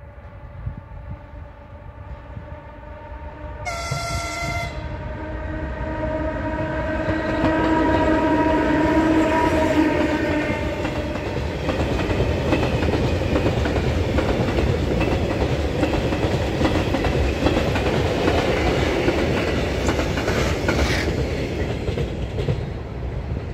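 Freight train behind a ZSSK Cargo class 131 twin electric locomotive: one short horn blast about four seconds in, over a steady whine. The whine then gives way to a long string of open coal wagons rolling past, their wheels clattering over the rail joints.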